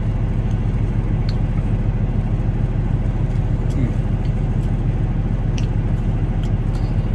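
Semi-truck's diesel engine idling: a steady low rumble, heard inside the cab.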